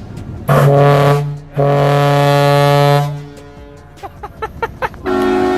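Truck-mounted ship horn sounding two blasts, a short one and then a longer one, each a single deep steady tone. About five seconds in, another horn starts, higher and with several tones sounding together.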